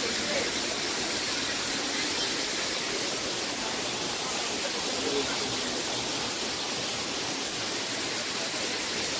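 Steady rushing of an artificial rock waterfall pouring into a pool.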